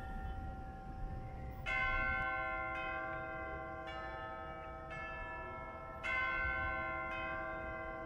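Bells ringing: long, steady ringing tones, with fresh loud strikes about two seconds in and again about six seconds in.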